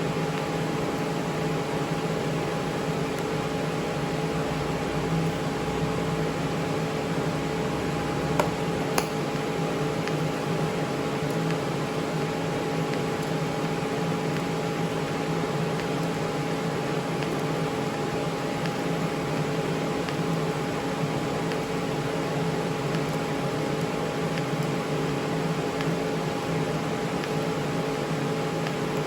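TIG welding setup running: a steady hiss with a constant electrical hum, broken by two short clicks about 8 and 9 seconds in.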